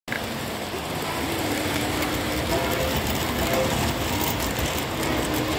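Three-rail model train running along its track close by, a steady rolling rumble and rattle of wheels on the rails.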